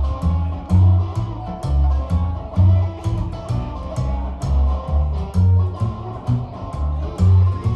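Live rock band playing an instrumental break: electric guitar over a bass guitar line and a steady drum beat.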